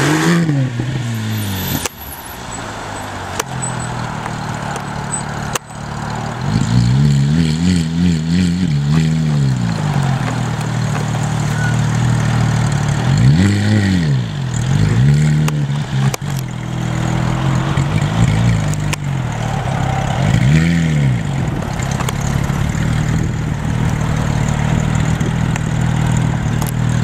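Porsche 997 GT3's flat-six engine idling, blipped on the throttle again and again so the revs rise and fall quickly: one longer double rev, then several short single blips.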